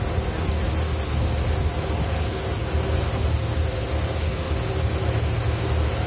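A boat's engine running steadily with a constant low drone, under an even hiss of water and wind.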